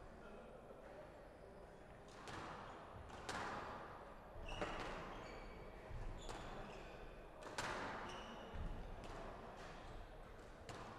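Squash rally: the ball smacks off rackets and the walls about every second and a half, starting about two seconds in, each hit ringing in the glass-walled court. Brief high squeaks of court shoes on the wooden floor come between the hits.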